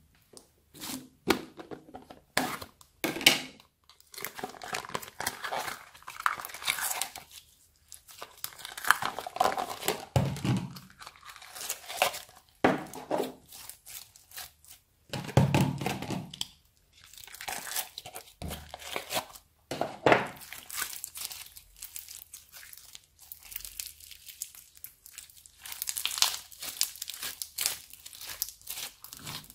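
Slime studded with sprinkles and beads being pressed, pulled and kneaded by hand, crackling and popping in irregular bursts, with a couple of deeper, longer squishes along the way.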